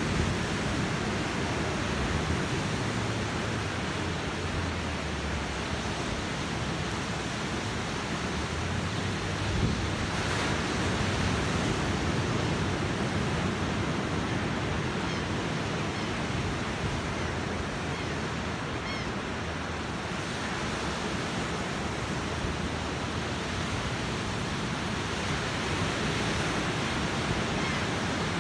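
Ocean surf breaking and washing up the beach in a steady rush, with wind gusting on the microphone.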